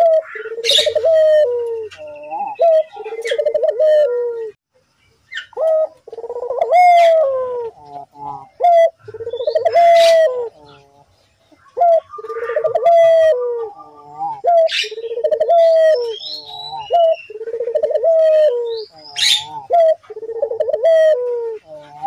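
Ringneck dove (burung puter) cooing over and over in an energetic run, each coo a rolling call that rises and then falls. The runs break off briefly about 5 s and 11 s in. Thin high chirps of small birds sound above the coos.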